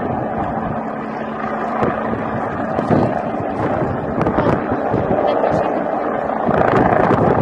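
Helicopter turbine and rotor noise with wind buffeting the microphone: a steady, dense rumble that grows a little louder near the end.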